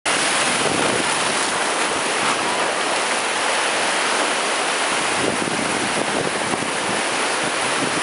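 Whitewater river rapids rushing and churning steadily around an inflatable raft running through them.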